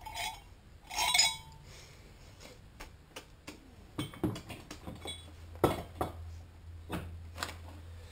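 Light metal clinks and knocks from a GY6 scooter engine being taken apart by hand: the cylinder sliding off its studs and the timing chain rattling. The loudest knock comes about a second in, and a scatter of smaller clicks follows later.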